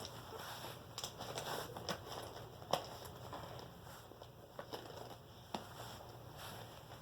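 Markers and other school supplies being pushed and packed into a pouch by hand: scattered light clicks and rustling, with sharper clicks about three seconds in and again about five and a half seconds in.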